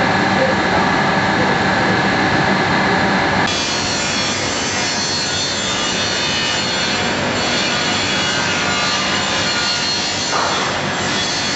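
Steady noise of woodworking factory machinery, with a continuous mechanical hum and whine. It changes abruptly to a different steady machine noise about three and a half seconds in.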